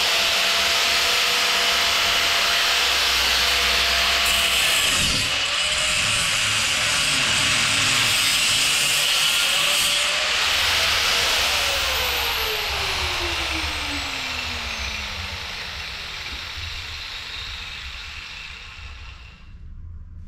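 Angle grinder cutting through the steel of a Land Rover Series 3 chassis dumb iron, with a loud, steady cutting noise. About eleven seconds in it is switched off, and its pitch falls as the disc spins down and fades out.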